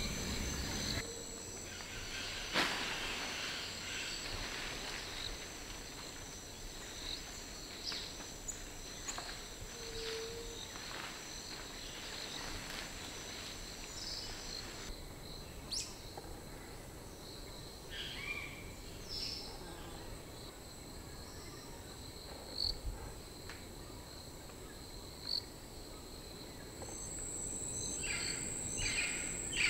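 Tropical forest ambience: insects shrilling steadily at a high pitch, with scattered short bird calls. Near the end a higher insect tone grows louder and a quick run of chirps comes in.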